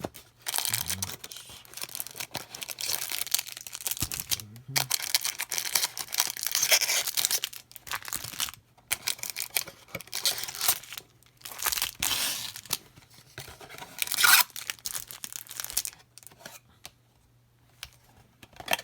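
Packaging of a trading-card blaster box being torn open by hand: tearing and crinkling in irregular bursts with short pauses, dying away near the end.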